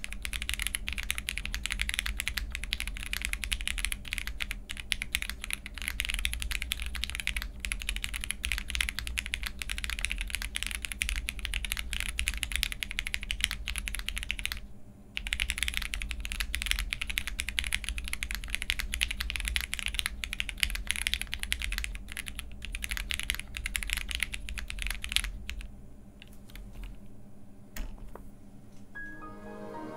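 Typing on a jris65 65% mechanical keyboard fitted with Cherry MX Black linear switches, a polycarbonate plate with Poron plate foam, and GMK Retro Muted keycaps. A fast, continuous stream of keystrokes pauses briefly about halfway and thins to sparser, quieter strokes in the last few seconds.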